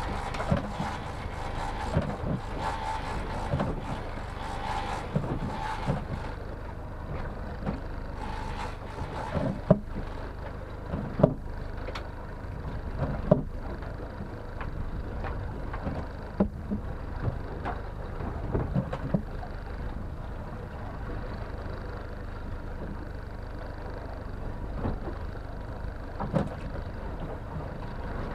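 Honda four-stroke outboard motor running steadily, with water churning at the stern and a hiss over the first six seconds. About a dozen sharp knocks from on board break in at irregular moments.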